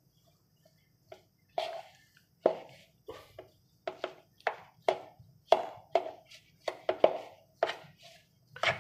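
Boiled, mashed potatoes being mixed with spices by hand in a bowl: a regular run of short, soft strokes as the hand presses and turns the mash, about two a second, starting about a second in.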